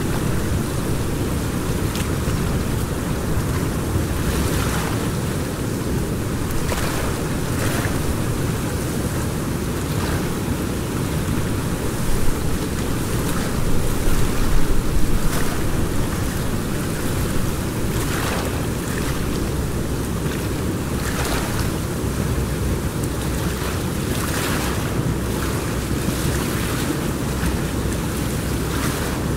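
Steady rush of flowing river water mixed with wind noise on the microphone, with short hissy surges every few seconds and a louder swell about halfway through.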